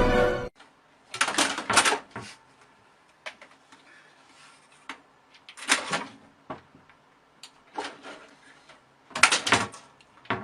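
Scattered knocks, clatters and rattles at irregular spacing, several grouped in quick clusters, like objects being bumped or a cupboard door knocked in a small room.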